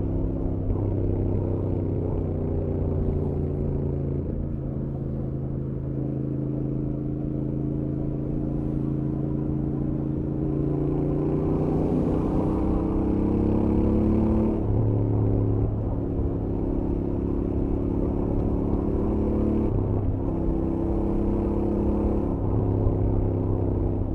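Stock Royal Enfield Interceptor 650's parallel-twin engine and exhaust running under load at highway speed. The engine note steps up and down several times, climbs for a few seconds past the middle, then drops sharply.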